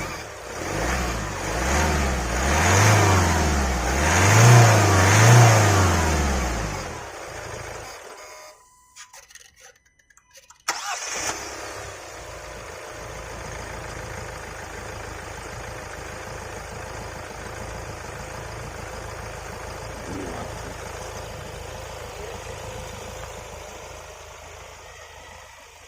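Kia Carens 1.5-litre (1493 cc) diesel engine revved up several times in quick succession, its pitch rising and falling with each blip, then running at a steady idle after a brief near-silent gap. A smooth, fairly quiet diesel that the owner calls refined and silent.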